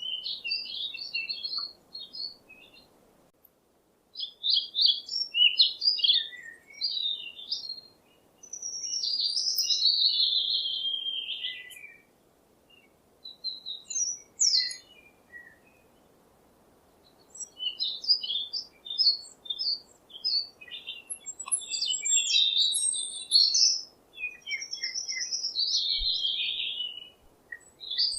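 Songbirds chirping and singing in phrases of quick high notes, some run together into longer warbling stretches, with short pauses between phrases.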